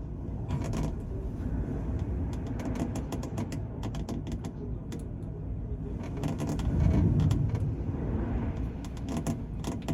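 Steady low rumble of a car ferry underway, with scattered sharp clicks and creaks over it; the rumble swells louder about seven seconds in.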